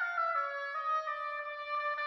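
Solo oboe playing a melodic phrase that steps downward through a few short notes and settles onto a longer held note.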